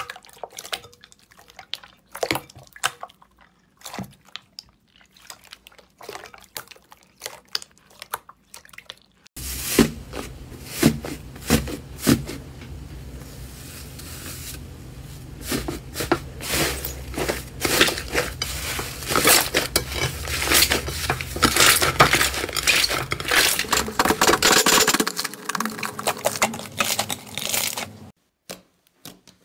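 Crunchy slime being squeezed, poked and stretched by hand, giving sticky crackles, pops and squishes. About a third of the way through it changes abruptly to a louder, denser run of crackling over a low hum, which is busiest in the second half and stops a few seconds before the end.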